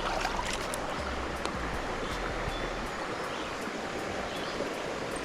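A river running high after rain, its water rushing steadily, with a few faint clicks.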